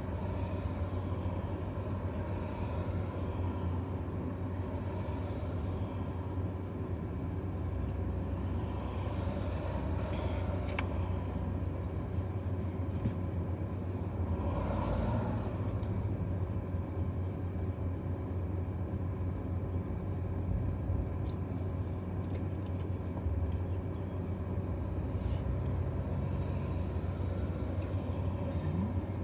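Steady low rumble with a constant hum, like a vehicle running.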